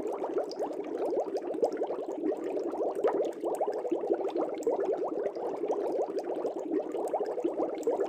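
Aquarium water bubbling steadily: a dense, continuous stream of small air bubbles, heard as many quick overlapping blips.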